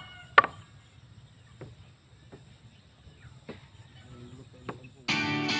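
A loud short sharp sound about half a second in, then faint short taps roughly a second apart; guitar music starts near the end.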